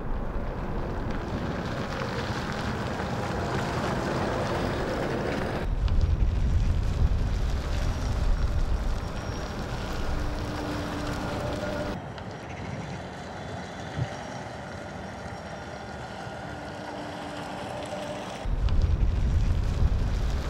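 Road and traffic noise with wind buffeting the microphone, changing abruptly three times where shots are cut together. A faint short hum is heard twice, about ten and about sixteen seconds in.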